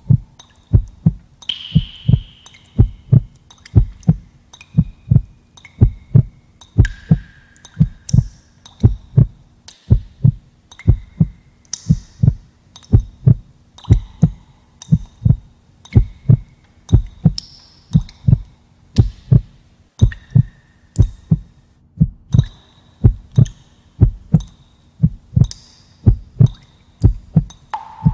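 Heartbeat sound effect: a steady, even rhythm of low thumps, about two a second.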